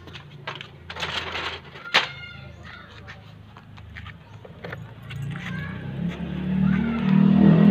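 Light metallic clinks and jingling, with one ringing clink about two seconds in. Then a motor vehicle's engine hum swells steadily louder over the last few seconds.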